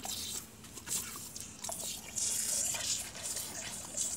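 Water from a garden hose nozzle spraying and splashing as a dog bites and laps at the nozzle, drinking straight from it. The spray hiss, with small wet clicks, grows louder about two seconds in.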